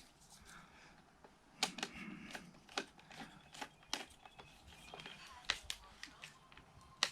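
Irregular light clicks and short scrapes of a screwdriver and stiff cable being worked into the terminals of a socket plate while fitting the neutral wire.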